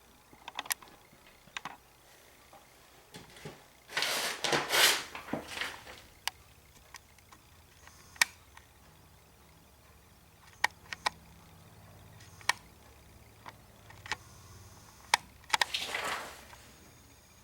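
Mechanism of a 1940 Remington Model 4P typewriter being worked: scattered single sharp clicks, with two longer rattling, sliding runs, one about four seconds in and one near the end.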